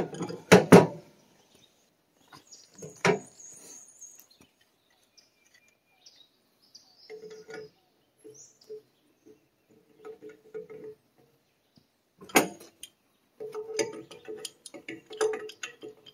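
Hand tools clanking against metal as they are picked up and set down, with loud knocks about half a second in and again near the twelve-second mark. Between the knocks come spells of quick, repeated rasping strokes as brass well-tank fittings are turned on their threads with tongue-and-groove pliers and a pipe wrench.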